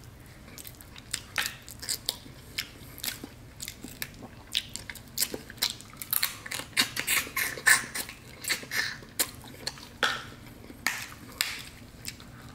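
A person eating snow crab legs in Cajun butter sauce: chewing and sucking the meat out of the legs, with many short, sharp wet clicks and smacks, busiest in the middle.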